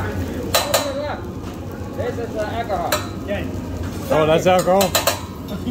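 Fried rice sizzling on a hibachi flat-top griddle, with several sharp clicks and knocks and voices of diners, loudest about four seconds in.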